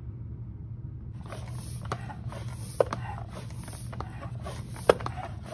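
Go-kart tire being pumped up with a bike floor pump, with a series of sharp snaps about once a second, starting about a second in, as the soaped tire bead pops out onto the rim and seats.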